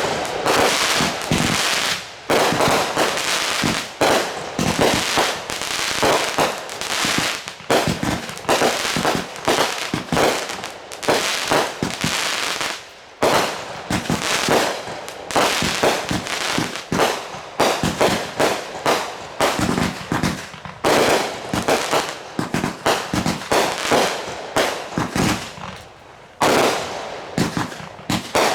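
Consumer fireworks going off in rapid succession: a near-continuous barrage of sharp bangs and crackling, with brief lulls about two seconds in, near the middle, and shortly before the end.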